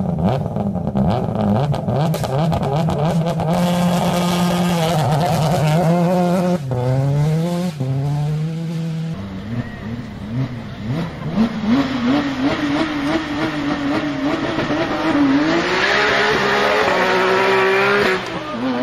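Subaru WRX STI rally car's turbocharged flat-four boxer engine running with a steady uneven note, then revving up twice in quick rising sweeps. About nine seconds in it gives way to a Porsche 911's flat-six revving and accelerating, its pitch climbing to a loud peak near the end before dropping.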